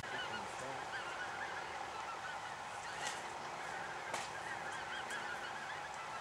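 A flock of geese honking, faint, with many short calls overlapping one another.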